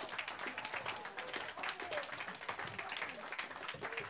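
A small group in a room applauding, many quick hand claps overlapping, with some voices calling out among them.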